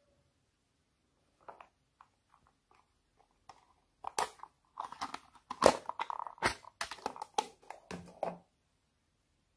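A thin blue sheet crinkling and crackling as it is handled, in a dense run of sharp crackles starting about four seconds in and lasting about four seconds, after a few faint clicks.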